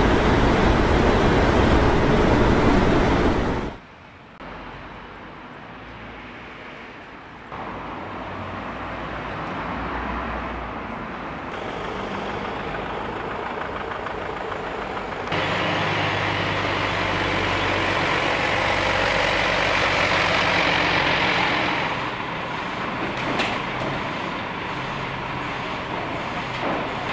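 Heavy truck engines and road traffic noise across several cut-together clips. The first few seconds are loud and rushing, then a sudden cut drops to a quieter low engine hum, which steps up in loudness a few times.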